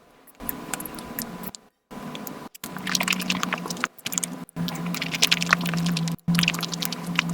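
Eating sounds of Nutella pancake crepes played at high speed: a dense rush of rapid wet clicks and squishes from biting and chewing, over a steady low tone, broken by a few abrupt silent gaps.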